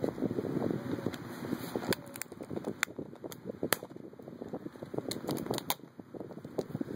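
Cardboard packaging of 2012 Panini Absolute football cards being handled and opened: rustling and scraping of cardboard, with scattered sharp clicks and snaps as the flaps and packs are worked. The rustling is busiest in the first couple of seconds.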